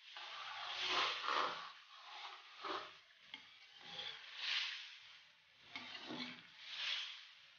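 Chicken and tomatoes sizzling in oil in a metal karahi while a metal ladle stirs them. The ladle scrapes and sloshes through the pan in strokes every second or two, each swelling the sizzle.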